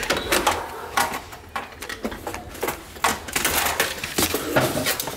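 A window sash being forced and rattled in its frame by hand: an irregular run of sharp knocks, clicks and scrapes, several a second.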